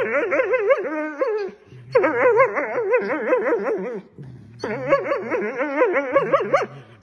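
Doberman whining in long, fast-wavering warbles while nibbling at a dachshund's neck: three drawn-out phrases with short breaks about a second and a half in and about four seconds in.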